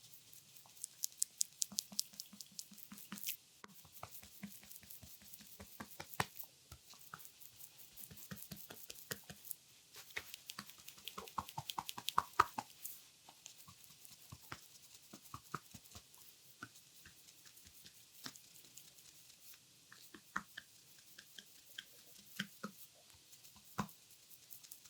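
Oiled hands kneading and pressing a bare belly during abdominal massage: quick runs of wet clicks and squelches from the oily skin, coming in clusters with short pauses between.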